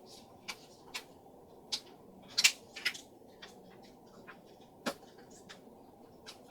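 Irregular light clicks and taps of Play-Doh and its plastic pieces being handled, the loudest about two and a half seconds in.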